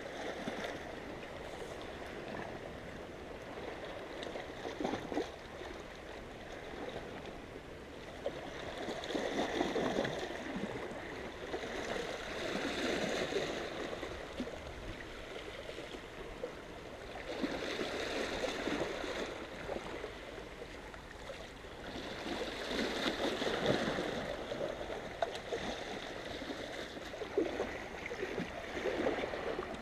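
Small sea waves washing and gurgling against the rocks of the shoreline, swelling and easing every four to five seconds.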